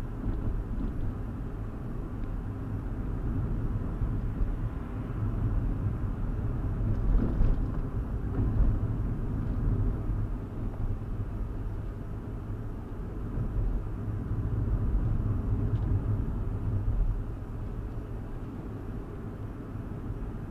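A 2015 Hyundai i20 being driven, heard from inside the cabin: a steady low rumble of road and engine noise that swells and eases as it goes.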